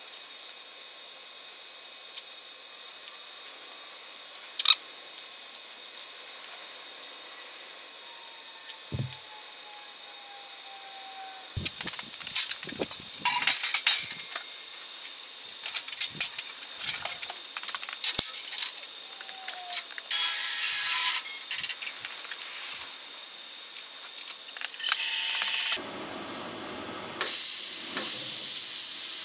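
Faint steady hiss with scattered clicks and knocks, then near the end a CNC plasma cutter firing: a short burst of air, a brief pause, and the torch's steady loud hiss as it starts cutting steel plate.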